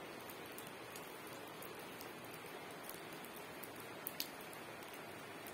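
Fairly heavy rain falling steadily, an even hiss with scattered sharper drops ticking on nearby surfaces; two louder drops land about four seconds in.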